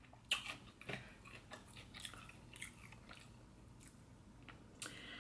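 A person chewing food close to the microphone, faint, with a few scattered short wet clicks.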